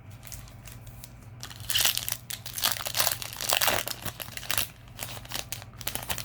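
Foil booster-pack wrapper crinkling and rustling in the hands, in a run of irregular crackles from about a second and a half in until near the end.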